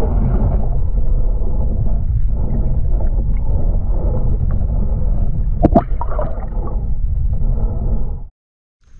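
Muffled rush and gurgle of water recorded underwater: a dense deep rumble with nothing above the lower middle range. A brief sharper knock with a short falling sweep comes a little before six seconds in, and the sound cuts off suddenly near the end.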